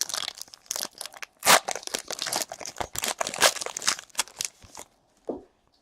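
Foil trading-card pack wrapper being torn open and crinkled, a dense run of crackling and tearing that stops just before the end.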